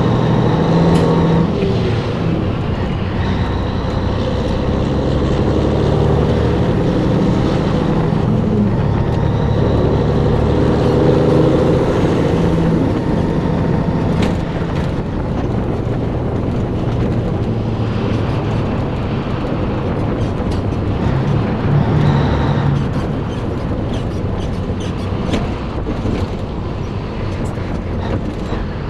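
Cabover Peterbilt 362's diesel engine pulling under load, its note changing in steps as the truck is shifted up through the gears.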